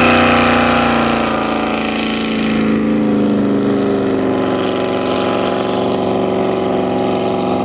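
Straight-piped jet boat engine running at speed, a steady drone whose pitch eases down a little over the first couple of seconds and then holds.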